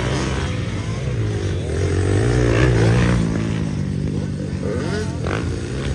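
Motocross dirt bike engines revving on the track, rising and falling in pitch, loudest a couple of seconds in.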